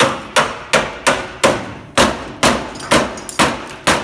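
A hammer striking steel repeatedly, about ten quick blows at two to three a second with a brief pause partway through, working a chisel at a stuck nail fixing the unit to the wall.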